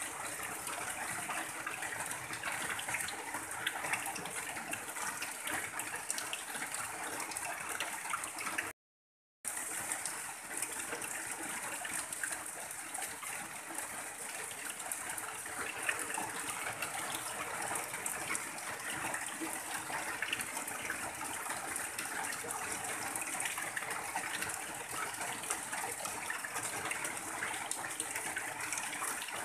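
Heavy rain on a tin roof, with runoff pouring off the roof edge in a steady stream. The sound cuts out completely for under a second about nine seconds in.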